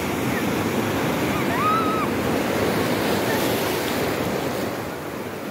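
Ocean surf breaking and washing up the shore: a steady rush of whitewater that eases a little near the end.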